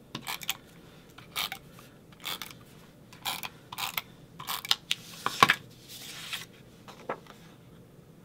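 Scrapbook paper rustling and scraping in short strokes as pieces are handled, slid and pressed down, with a sharper click about five and a half seconds in.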